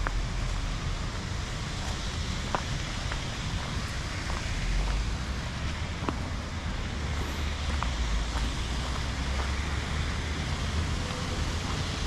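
Steady rushing of a small waterfall and creek, with a low rumble of wind on the microphone and scattered small clicks and snaps.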